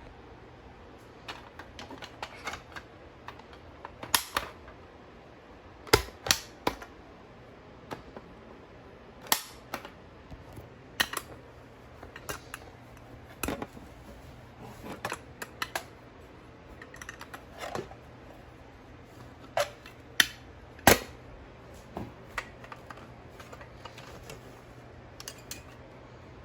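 Fire alarm pull stations being pulled and handled: sharp mechanical clicks and snaps of handles and latches, irregular, roughly one every second or so, the loudest about six seconds in and again near twenty-one seconds.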